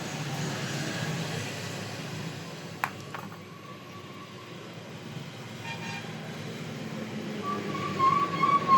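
Steady street traffic noise, with a sharp click about three seconds in and a vehicle horn tooting, wavering slightly in pitch, near the end.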